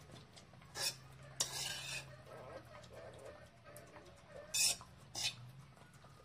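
A metal spoon clinking and scraping against a steel dog bowl as food is served, while a dog eats from it. Several short sharp clinks, and one longer scrape about a second and a half in.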